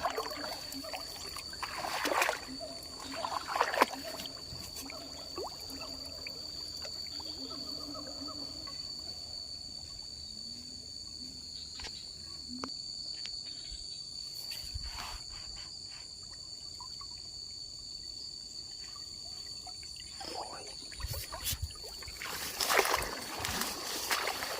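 Water splashing and trickling in short bursts a couple of times in the first few seconds and again near the end, over a steady high-pitched insect drone.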